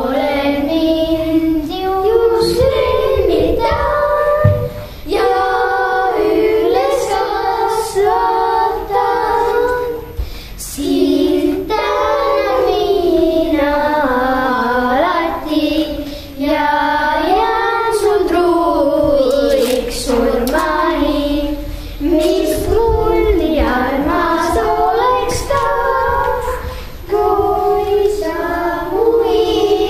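Children singing a song, in phrases with short breaks between them.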